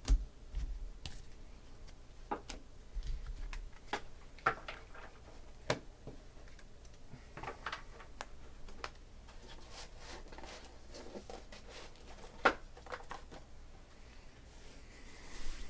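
Scattered light taps and clicks of trading cards being handled and set down on a table, with a sharper tap just after the start and another late on.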